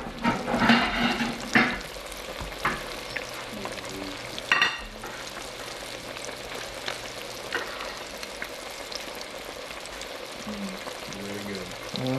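Crappie fillets deep-frying in hot oil in a pot: a steady sizzle with bubbling. There are a few sharper pops and knocks in the first couple of seconds.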